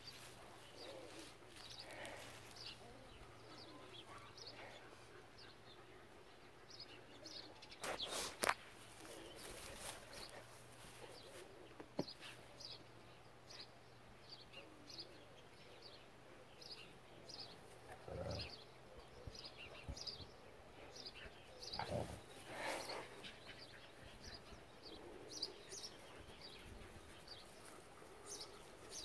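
Small birds chirping on and off, faint, with a few short louder noises, the loudest about eight seconds in.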